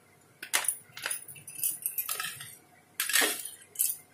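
Metal spatula scraping and clinking against a plate as it mashes and spreads a moist spice paste: about five separate strokes, the loudest about three seconds in.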